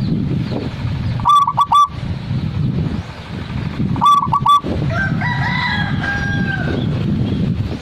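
Zebra dove (perkutut) cooing: two short bursts of rapid, clipped notes, about a second and a half in and again about four seconds in. Another bird's longer call follows just past the middle, over steady low background noise.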